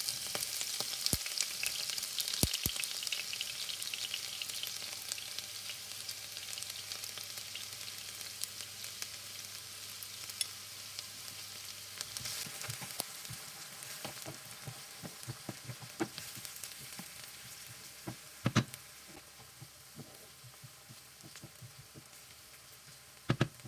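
Chopped onion sizzling in hot oil in a frying pan. The sizzle is loudest just after the onion goes in and slowly dies down. From about halfway, a wooden spoon stirs the onion and knocks against the pan now and then.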